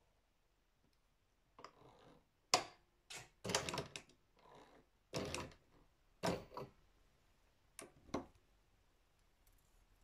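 Irregular clicks, knocks and rustles of hands handling fabric, thread and parts at a sewing machine, about eight sharp sounds spread over several seconds with no machine running.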